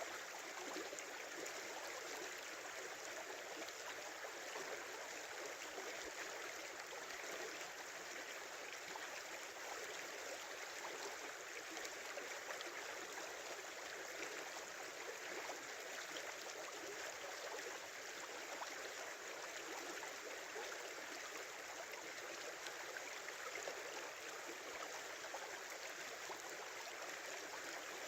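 A small river flowing and babbling, a steady, even rush of water with no breaks or separate splashes.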